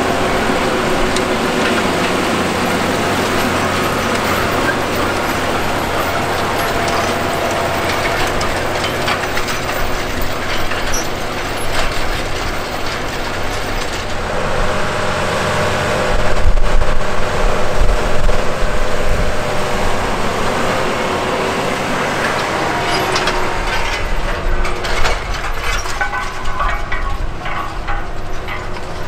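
Case IH Quadtrac 470 tractor's diesel engine running steadily under load while pulling a 39 ft 9 in John Deere 2310 soil finisher through the ground. It swells louder for a couple of seconds about halfway through.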